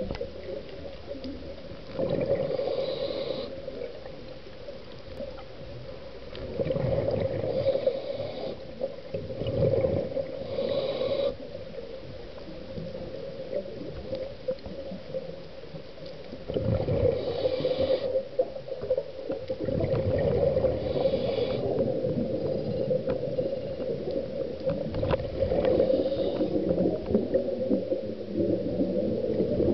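Scuba diver breathing through a regulator, heard underwater: several breaths a few seconds apart, each an inhale hiss and a gurgling rush of exhaled bubbles, over a steady hum.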